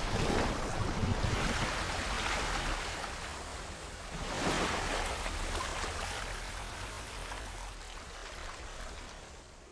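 Rushing, splashing water sound effect for an animated logo intro. It swells at the start, surges again about four and a half seconds in, then gradually fades out.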